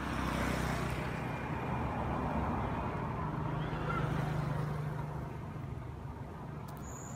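A motor vehicle's engine running, a steady low hum that swells at the start and eases off after about five seconds.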